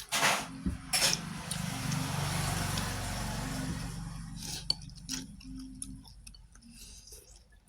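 Two sharp clatters, then a motor vehicle passing close by, its engine swelling and fading over about four seconds.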